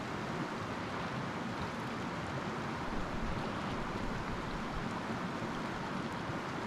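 Mountain river rushing over a rocky riffle: a steady, even rush of water.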